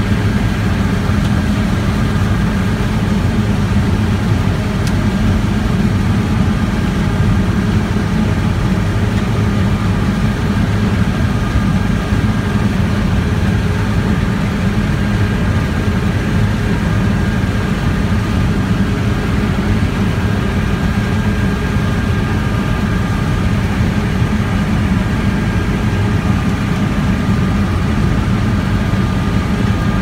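New Holland combine harvester running under load while it harvests soybeans, heard from inside the cab. It is a steady low drone of engine and threshing machinery, with a faint steady whine above it.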